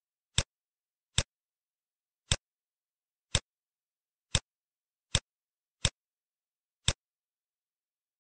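Eight single sharp clicks at uneven intervals, with dead silence between them: clicks from selecting answers and buttons in an on-screen quiz.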